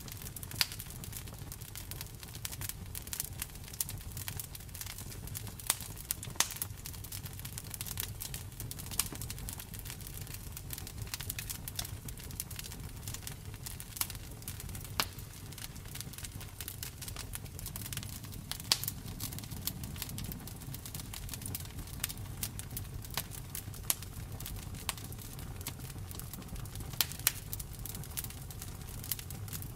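Campfire burning: wood crackling and popping in irregular sharp snaps, a few louder pops scattered through, over a steady low rumble.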